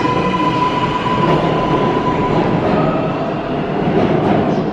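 R188 subway train leaving the station, its cars rumbling over the rails with a steady high whine that fades out about halfway through. A few sharp clicks come near the end.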